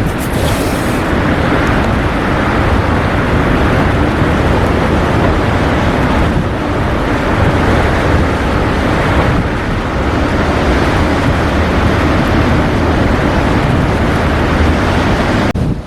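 Strong blizzard wind rushing and buffeting the microphone, a loud steady noise that swells and eases a little. It cuts off suddenly near the end.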